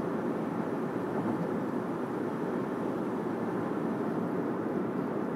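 Steady road and tyre noise inside the cabin of a car driving on the highway, an even rumble and hiss with no breaks.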